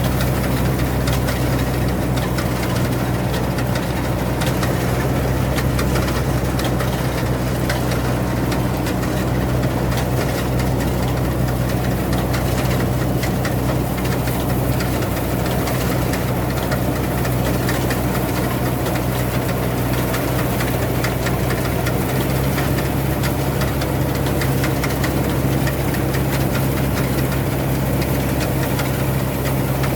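Rice combine harvester's diesel engine running steadily under a constant drone.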